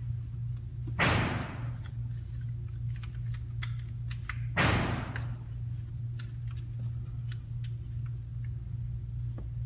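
Two gunshots from neighbouring lanes of an indoor range, about a second in and again about four and a half seconds in, each with a sharp crack and a reverberant tail. Between them run a steady ventilation hum and light clicks of gear handling.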